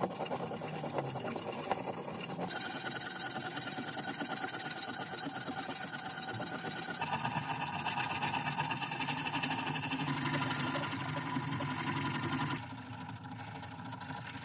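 Needle file rasping against the cast metal body of a 1930s Rain King sprinkler in quick back-and-forth strokes. The rasp grows quieter a little before the end.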